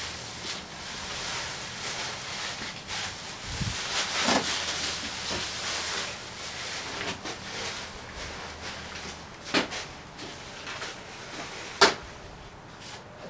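Rustling and handling noises as parts and packaging are unpacked from a box, with two sharp knocks about two seconds apart near the end, the second the louder.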